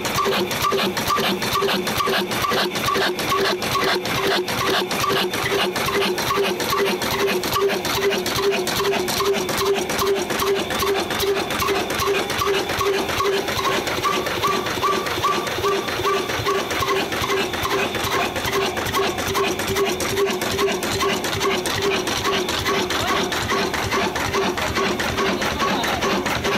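Old 22 HP Ruston & Hornsby diesel engine running steadily, driving a flour mill. It makes a fast, even mechanical clatter over a pulsing hum.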